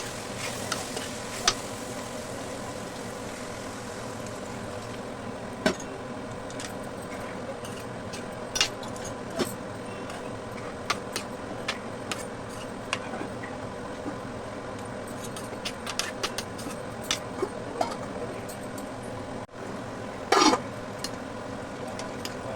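Curry frying in a pan, a steady sizzle with scattered clicks of a utensil against the pan, and one louder scrape about twenty seconds in.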